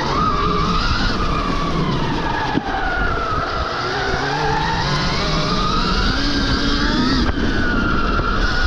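Stark Varg EX electric dirt bike's motor whining, rising and falling in pitch over and over as the throttle opens and closes, over a dense low rumbling noise.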